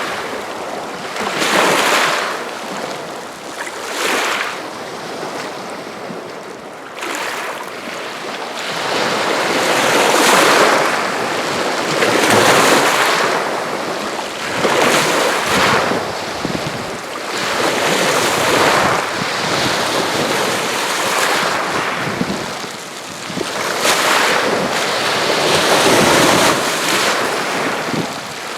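Small waves on Green Bay washing and splashing against the shore in uneven surges, coming every couple of seconds at first and then in broader swells.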